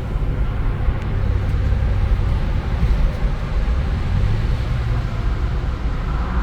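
1996 Audi A6 C4's 2.8-litre V6 engine and stock exhaust pulling in second gear at part throttle, heard from inside the cabin in a tunnel. A steady low engine note with road noise.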